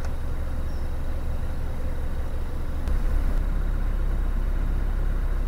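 Narrowboat's diesel engine running as the boat gets under way, a steady low rumble that grows a little louder about three seconds in.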